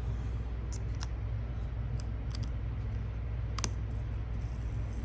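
About five small, sharp clicks of a 394 coin-cell battery and metal parts against the open quartz watch case as the new battery is pushed into its holder, the sharpest about three and a half seconds in, over a steady low hum.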